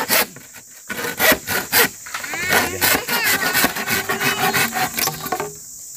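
Hand saw cutting through a green bamboo stalk in quick, repeated strokes. There is a short pause in the first second, and the sawing stops shortly before the end.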